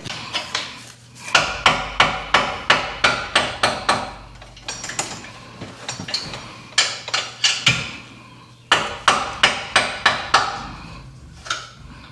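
Hammer striking metal in three quick runs of blows, about four a second, each blow ringing briefly, as a rusted exhaust joint is worked loose.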